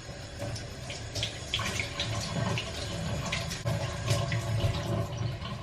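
Liquid running or pouring in a kitchen, with small irregular clinks and splashes.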